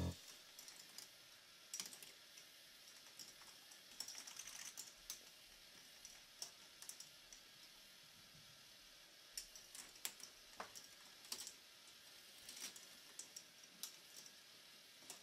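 K'nex ball machine running: small plastic balls clicking and clacking irregularly, a few times a second, as they roll along the plastic tracks and drop through its elements.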